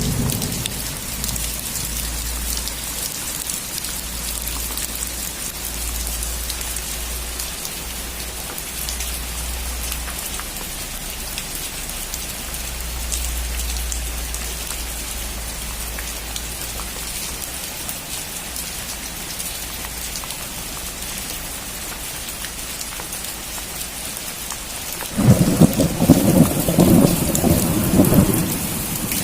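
Steady heavy rain falling on a roof, with low thunder rumbling underneath through the first half. A loud thunderclap breaks in near the end and rolls for about four seconds.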